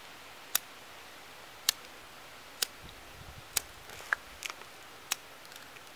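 A hand-held lighter being struck again and again to light Vaseline-soaked cotton-ball fire starters: sharp single clicks about once a second, six in all.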